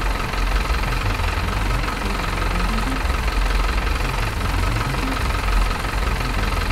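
Miniature RC construction machines running: a steady, idling engine-like rumble with a constant high motor whine while the small belt conveyor carries crushed stone.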